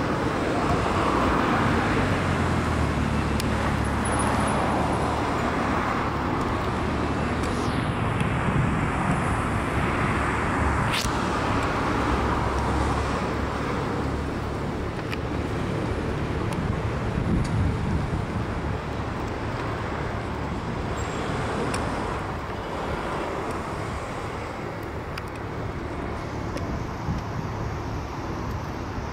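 City road traffic: a steady wash of car and engine noise with a low rumble, swelling and easing as vehicles pass.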